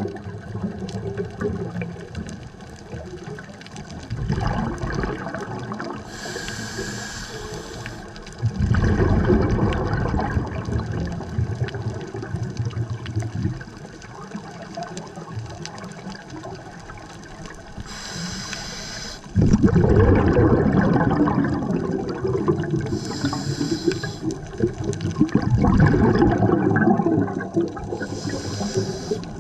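Underwater recording of a scuba diver breathing through a regulator. Four short high hisses are inhalations, and the loud churning bubble noise that follows them is the exhaled air rising.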